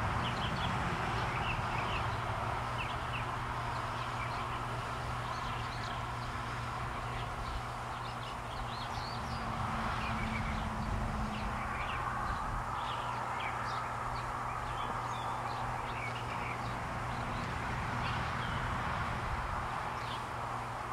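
Small birds chirping in short, scattered calls, over a steady low hum.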